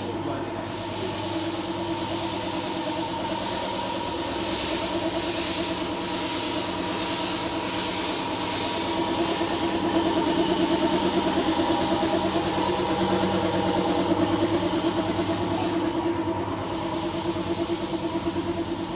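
An engine running steadily at idle, with a hiss over it.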